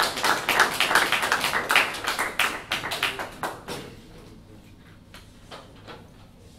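Audience applauding, dying away about four seconds in, with a few last scattered claps.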